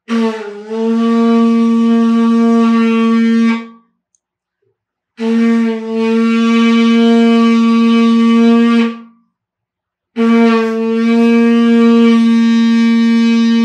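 Conch shell trumpet (lambi) blown three times, each a long steady single note of about three and a half seconds that wavers briefly as it starts.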